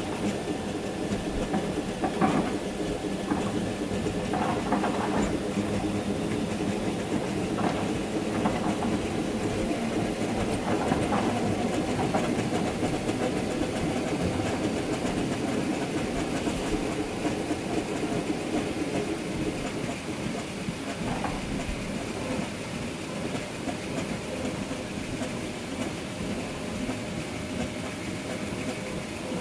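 Train running along the track, heard from the driver's cab: a steady rumble of wheels on rail with occasional clicks and knocks, mostly in the first dozen seconds.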